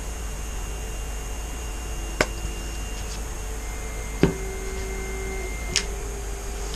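Steady hum and hiss of room noise with three short, sharp clicks, about two, four and nearly six seconds in; the middle click is the loudest.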